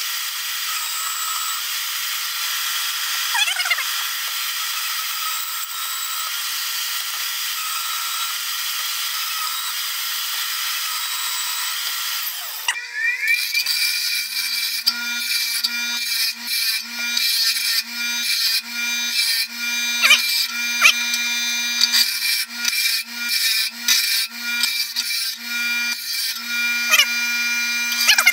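A portable bandsaw running and cutting through steel flat bar, a steady even sawing hiss. About 13 seconds in it gives way to an abrasive grinder wheel running with a steady hum, the steel pressed against it in many short, uneven passes that come and go in loudness.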